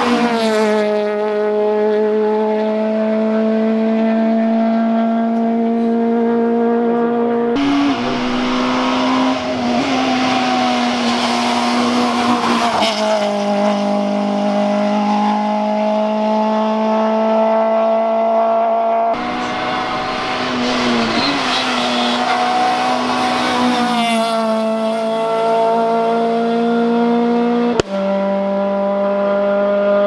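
Rally car engines at full throttle on a tarmac hillclimb, one car after another. A Peugeot 208 rally car passes at the start, its engine note dropping as it goes by; the later cars are heard running hard at high revs, with the pitch dipping and climbing again several times.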